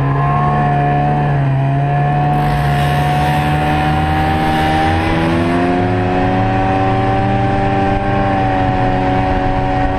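Snowmobile engine running steadily at speed, its pitch rising slightly about five seconds in.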